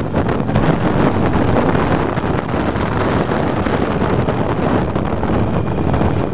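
Heavy wind noise on the microphone at road speed, over the running 883 cc V-twin of a 2013 Harley-Davidson Iron 883. The sound stays steady throughout.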